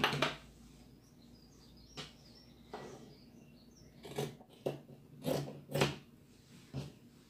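Fabric scissors cutting through Ankara print cotton fabric along a curved line: a run of short snips, bunched more closely in the second half.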